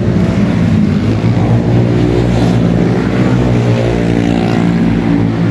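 A motor engine running steadily nearby, a loud even hum with a slight waver in pitch.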